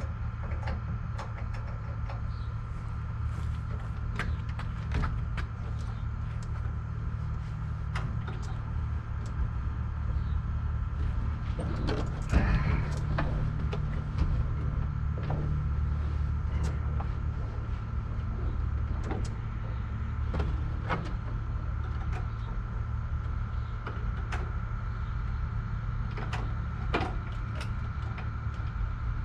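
Scattered clicks and knocks of a pilot climbing into a parked Cessna 140A's cabin and settling in, with the loudest cluster about twelve seconds in, over a steady low rumble.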